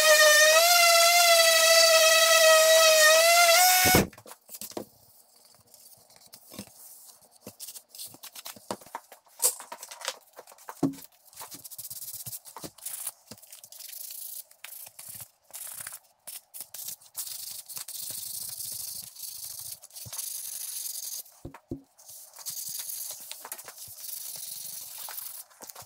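Electric random orbital sander running with a steady high whine on a hardwood board, cutting off about four seconds in. After that comes a quiet scratchy rubbing of sandpaper worked by hand on wood, with scattered light knocks as the pieces are handled.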